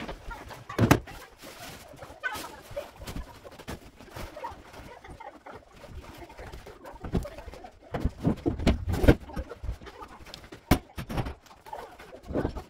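Irregular knocks and thuds of furniture and household junk being moved and dropped while a room is cleared out, loudest about a second in and again around eight to nine seconds in, with a bird cooing.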